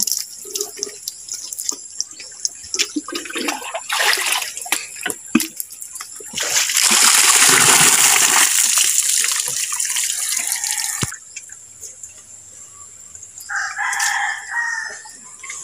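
Water scooped from a spring pool with a plastic pail and poured out, a loud splashing rush lasting about four seconds in the middle. Near the end a rooster crows once.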